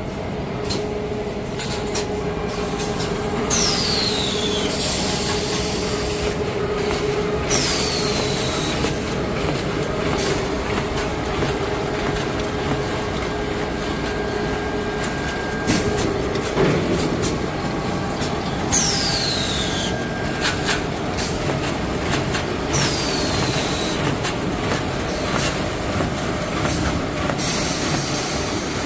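Small kitchen-towel rewinding and band-saw log-cutting line running, with steady machine noise, a low hum and frequent mechanical clacks. A high whine falling in pitch comes four times, in two pairs about four seconds apart.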